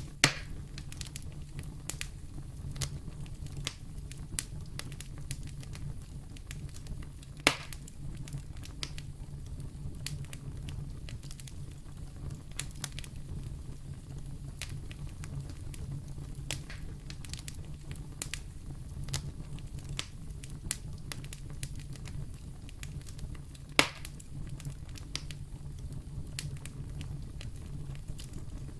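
Wood fire burning in a fireplace, crackling continuously with many small ticks over a steady low rumble, and three sharper, louder pops: one right at the start, one about a quarter of the way in, and one near the end.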